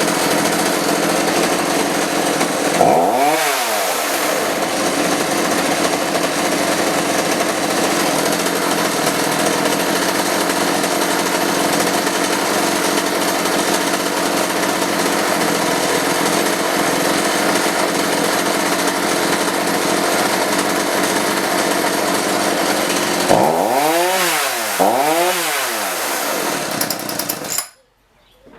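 Homelite 3514C two-stroke chainsaw engine running steadily after a new spark plug and fresh fuel. Its engine speed swings up and back down once about 3 seconds in and twice near the end, then the engine cuts off abruptly.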